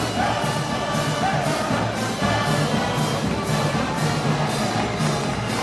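Brass band playing Moros y Cristianos festival march music, with a steady percussion beat of about two strokes a second.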